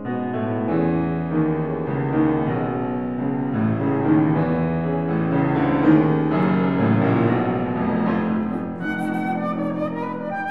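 Yamaha grand piano playing a solo passage of chords and moving notes, with a concert flute coming in with a high melodic line near the end.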